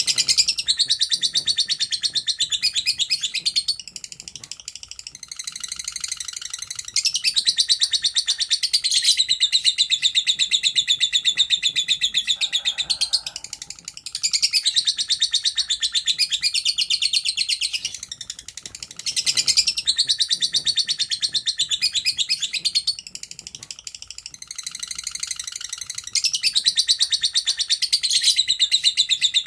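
A lovebird sings its long, rapid chattering trill ("ngekek panjang"), high-pitched and fast-pulsed, in bouts several seconds long broken by short pauses.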